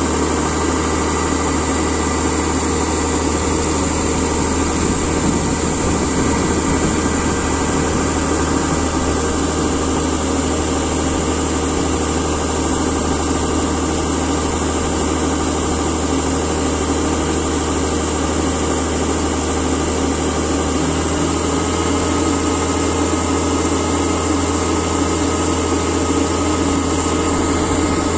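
Kubota DC68G combine harvester's diesel engine running steadily while its unloading auger pours threshed paddy into a trailer. Its tone shifts slightly about three-quarters of the way through.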